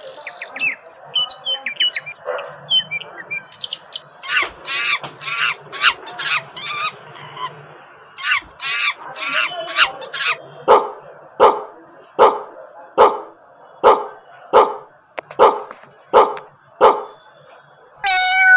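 Birds chirping, then two runs of rapid squawking calls, then a dog barking about nine times, roughly once every 0.8 seconds.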